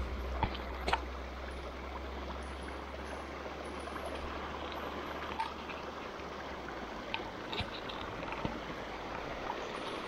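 Small forest stream running and trickling over rocks, a steady rush of water. A couple of light clicks sound about half a second and a second in.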